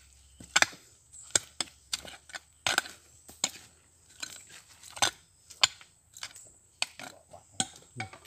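A hand digging tool chopping into the ground to dig out a metal detector target: a series of sharp strikes, irregularly spaced about every half second to a second.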